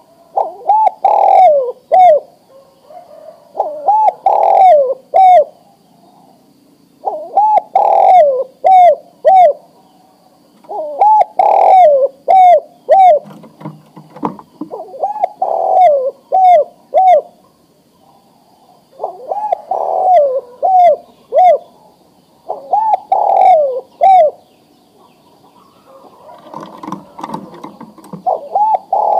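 Male spotted dove cooing: a male's call to a female, ready to breed. Phrases of four to six low, rounded coos repeat every three to four seconds, with a longer pause about two-thirds of the way through. Other small birds chirp faintly and high.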